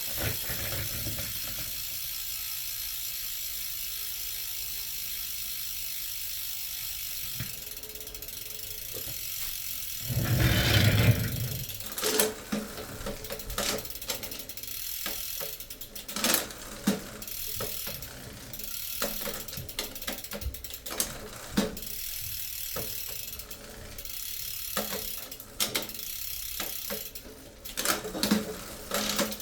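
Bicycle chain drive with a new chain being turned, the freewheel ratchet ticking. A steady whirr early on gives way to a loud knock about ten seconds in, then irregular clicks and clunks of chain and sprockets.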